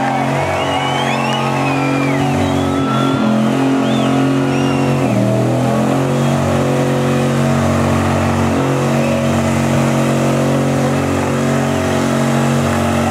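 Muscle car's engine held at high, steady revs during a burnout, with its tyres spinning. The revs dip briefly a couple of times in the first five seconds, then hold steady.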